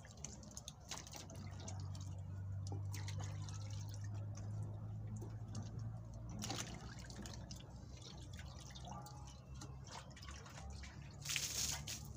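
Carrots being rinsed by hand in a metal pot of water: small splashes and drips, then a louder splash as the water is tossed out of the pot near the end.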